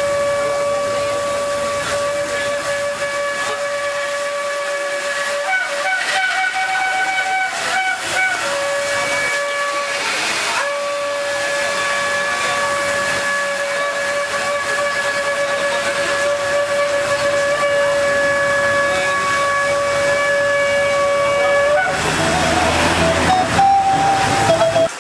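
Long spiral shofar blown in long, steady blasts on one held note. It jumps up to a higher note about six seconds in, sounds another long blast of about ten seconds, and ends on higher notes.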